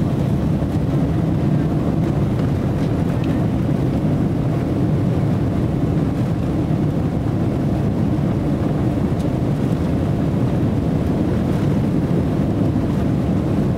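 Jet airliner's engines and rumble heard from inside the cabin as the plane rolls along the ground, a steady, loud, low noise with no clear rise or change.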